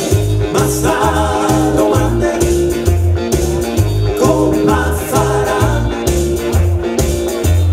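A man singing a song in Bergamasque dialect into a microphone over recorded backing music with a bouncy, repeating bass line.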